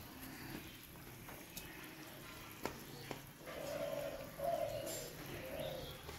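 A bird cooing, three low calls in a row in the second half, with two light clicks shortly before.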